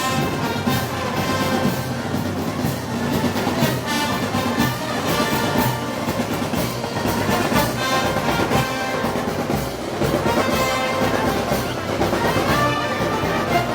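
Brass band playing Moros y Cristianos festival music: trumpets and trombones over a steady drum beat.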